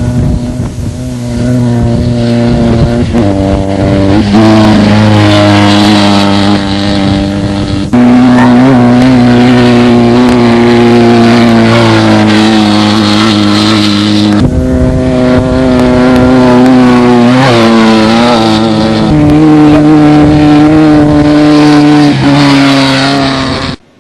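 Class 9 desert race buggies' air-cooled VW engines running hard at high revs. The pitch holds fairly steady with small rises and dips, then jumps abruptly several times as one car gives way to another. The sound cuts off suddenly near the end.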